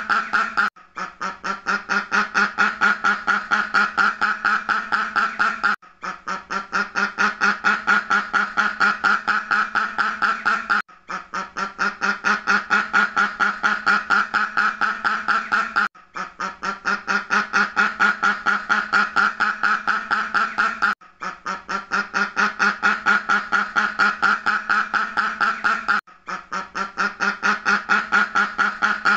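Duck quacking in a rapid, unbroken run of about four or five quacks a second. The run breaks off briefly every five seconds or so and starts again the same way, a short stretch looped over and over.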